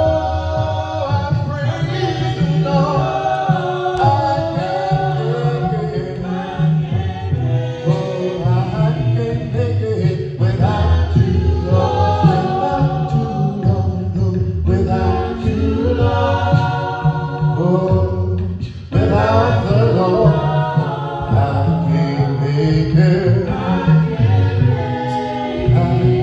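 Church congregation singing a hymn a cappella, many voices together in sustained phrases with no instruments, with a brief break between phrases about nineteen seconds in.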